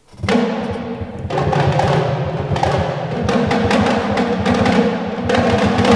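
Sampled orchestral tom-toms from Spitfire Albion One's Hyper Toms patch, played in fast rolling hits with a deep ring and a few louder strokes.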